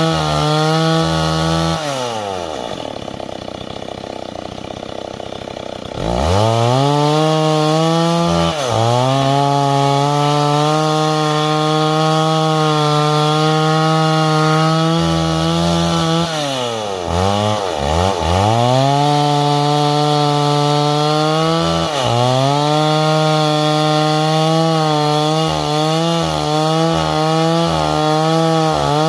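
Stihl MS 382 two-stroke chainsaw running at full throttle while cutting wood. About two seconds in it drops to idle for around four seconds, then revs back up, with several brief dips in engine speed later on.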